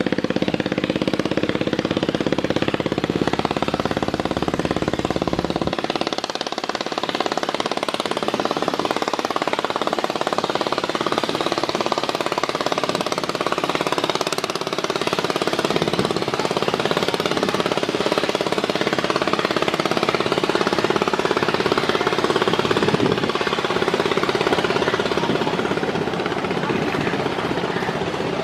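Diesel engine of a river passenger launch running steadily with a dense, knocking drone. About six seconds in, the deep low rumble drops away while the mid-pitched engine tones carry on.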